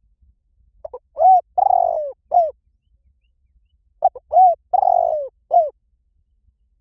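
Spotted dove cooing: two calls about three seconds apart. Each is a couple of short coos, a longer rolling coo and a short closing note.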